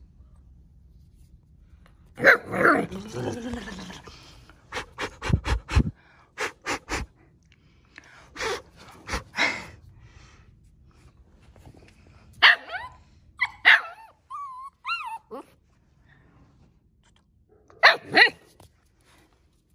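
Central Asian Shepherd puppies barking and yipping in short bursts, with a thin high whine in the middle and two sharp barks close together near the end.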